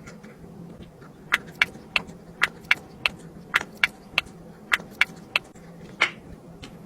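Silicone pop-it fidget toy bubbles being pressed one after another: a string of sharp pops, about two a second and unevenly spaced, over a low steady hum.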